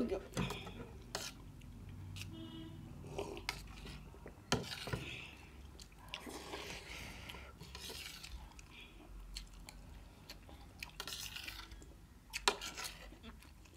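A metal spoon clinking and scraping on stainless steel plates while rice soaked in milk is eaten, with soft wet mixing sounds. Near the end, milk is poured from a glass jar onto the rice.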